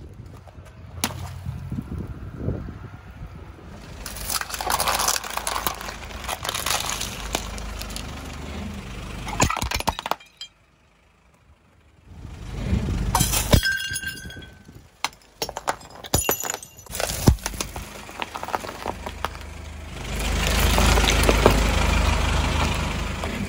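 A car tyre rolling over and crushing a series of objects: plastic cracking, crunching, and glassy breaking with clinks, in several separate takes with a short near-silent gap about ten seconds in. Near the end, a longer, louder crush.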